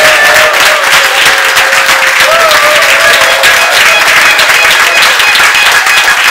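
Audience applauding loudly. Through the first half a wavering, held melodic tone sounds over the clapping and fades out about halfway.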